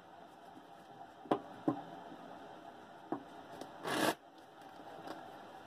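Tarot cards being handled at a cloth-covered table: a few light clicks and taps, then a brief scrape just before four seconds in as a card is slid onto the table.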